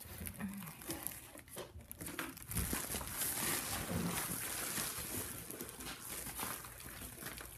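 Crinkling, rustling nylon of a Thermarest NeoAir XLite air mattress being handled and shaken out.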